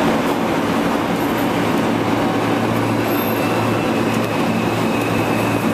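R46 subway train running past the platform: a loud, steady rumble of wheels on rails and motors, with a faint high whine coming in about halfway through.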